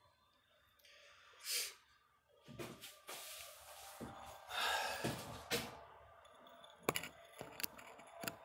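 Scattered shop handling noises: a few brief rustling swishes, then several sharp clicks and clinks near the end, with no machine running.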